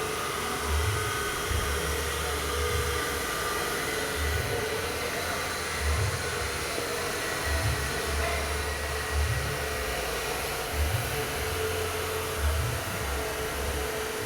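Box compression tester running steadily with a whirring, hissing motor sound and a faint steady hum, with irregular low thuds throughout.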